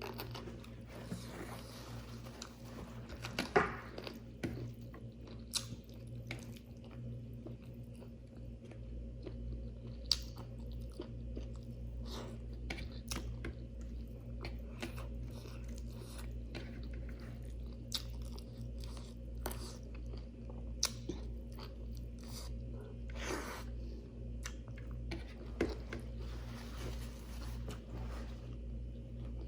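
Close-miked mukbang eating: wet chewing with scattered sharp crunches and clicks as a meal of rice, chicken curry and sides is eaten, the loudest crunch about three and a half seconds in.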